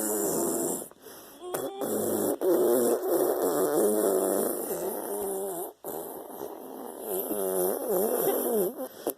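A run of long fart sounds, one after another with brief breaks between them, each wavering up and down in pitch.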